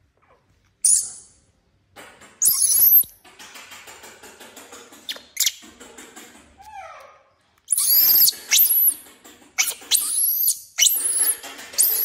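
Infant macaque giving shrill, high-pitched squeals, each rising and falling: one about a second in, another about two and a half seconds in, then a quick string of them from about eight seconds on.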